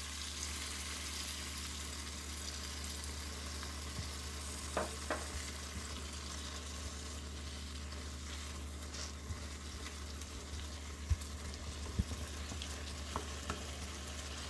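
Stir-fry of bok choy and pork sizzling steadily in a nonstick frying pan as it is stirred with a wooden spatula, with a few short clicks of the spatula against the pan.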